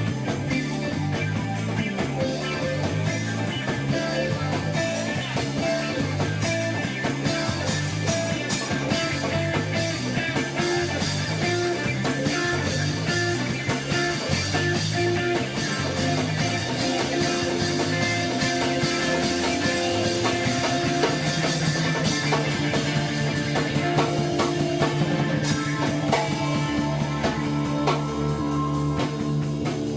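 Live instrumental rock jam: electric guitar over bass and drum kit, in a loose psychedelic rock style.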